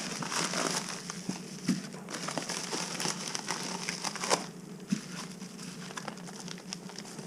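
Plastic packaging crinkling as parts are handled and unwrapped, busier in the first half and quieter after.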